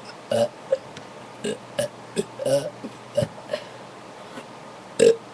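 A person burping in a string of short burps, about nine in five seconds, the loudest near the end, brought on by drinking soda.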